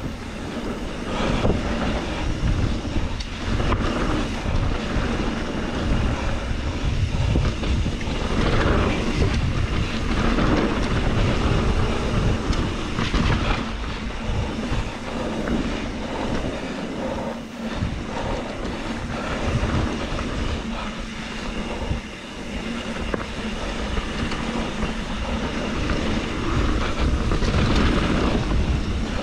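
2021 Trek Slash 7 mountain bike ridden fast down a dirt flow trail: continuous tyre rumble over the dirt, with the bike rattling, swelling and easing as the ground changes.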